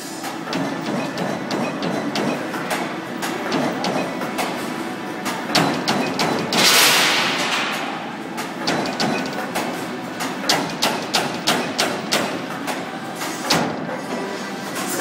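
Motorum 2044 CNC turret punch press punching sheet metal: a fast run of sharp, clacking punch strokes, several a second, over the machine's steady running noise. About seven seconds in, a brief loud hiss rises over the strokes.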